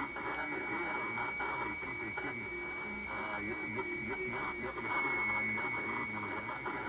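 AM radio receiver tuned to 1008 kHz (medium wave), giving out a harsh, grating noise with garbled speech-like content buried in it. A steady high-pitched whistle runs through the noise. The interference is thought to be a distorted transmission rather than electrical noise.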